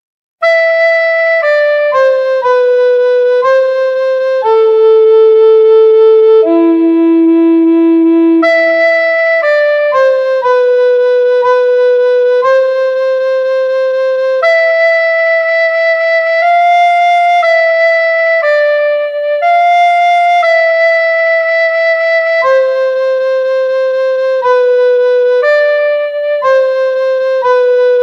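A woodwind instrument playing a slow melody in A minor, one clean held note at a time at a steady, unhurried tempo, in step with the kaval score.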